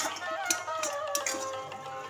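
Background music with a melody, and a few short light clicks of a spatula stirring food in a frying pan.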